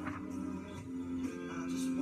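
Background music with sustained held notes.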